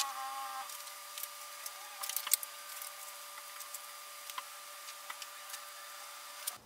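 Light metallic clicks and taps as camshaft bearing caps and their bolts are set by hand onto a Mazda 1.8 BP engine's aluminium cylinder head, with a sharp click at the start and a few more about two seconds in, over a faint steady hum.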